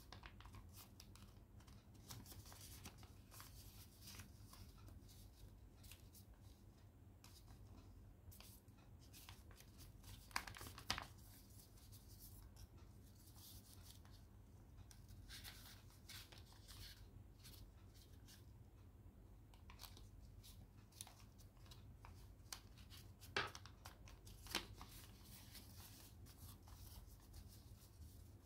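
Quiet rustling and crinkling of origami paper being folded and creased by hand, with a few sharper paper crackles about ten seconds in and again later on.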